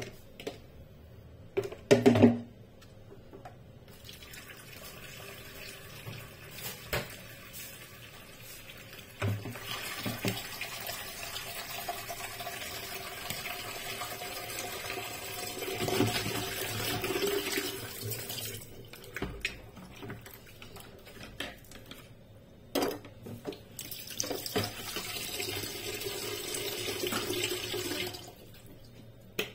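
Kitchen tap running into a sink while vegetables are rinsed in a plastic basin. The water runs steadily for about ten seconds, stops, then runs again for several seconds near the end. A few sharp knocks of handling come in the first seconds.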